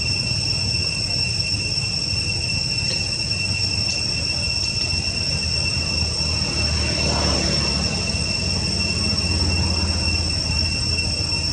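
Insects, likely cicadas, keep up a steady high-pitched drone, over a louder low steady rumble.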